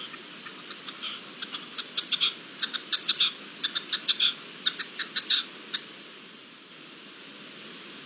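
A bird calling a fast run of short, sharp notes that comes quicker and louder over about five seconds and then stops, over a steady outdoor hiss.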